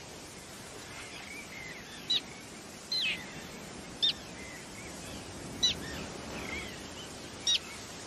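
Common terns calling: five short, sharp cries that slide downward, spaced irregularly, over a steady background rush.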